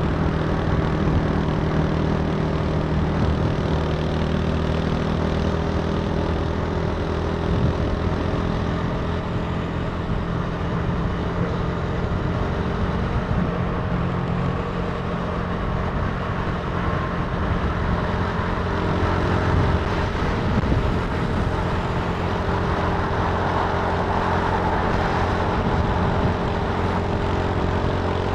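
Italika TC300 motorcycle engine running at a steady cruising pace, with wind and road noise from the ride.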